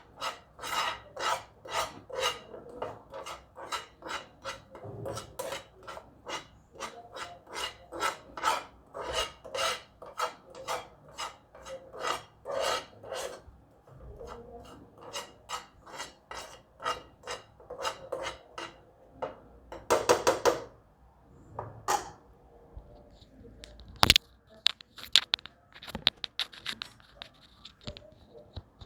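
A spoon scraping round a pan, stirring semolina as it roasts in ghee, in a steady rhythm of about two or three strokes a second. The stirring slows past the middle, and a sharp knock on the pan comes about three-quarters of the way through.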